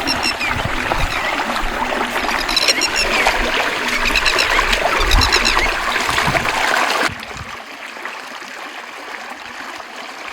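Water splashing and trickling, with short runs of high chirps. It cuts off abruptly about seven seconds in, giving way to a quieter hiss.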